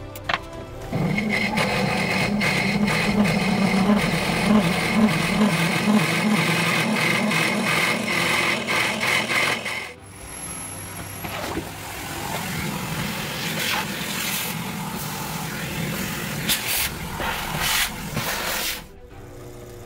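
Sherline mini lathe running with a 29/64-inch finishing drill cutting into the spinning part: a loud, steady, chattering drone. After a cut about ten seconds in, a vacuum runs with a rushing noise, sucking chips off the lathe, and stops shortly before the end.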